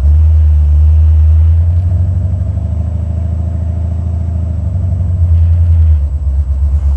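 Buick 455 Stage-1 V8 running under way, heard inside the cabin as a loud, steady low drone that swells sharply right at the start and eases back slightly in the middle.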